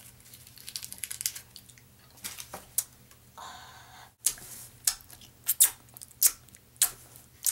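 Cough drop wrapper being handled and opened: a run of sharp crinkles and clicks, with a short tearing rustle about three and a half seconds in.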